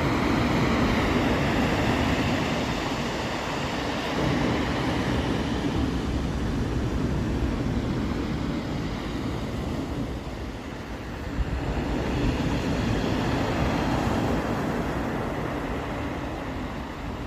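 Sea waves washing in and out on the beach: a steady rushing noise that swells and eases, rising again about four seconds in and about twelve seconds in.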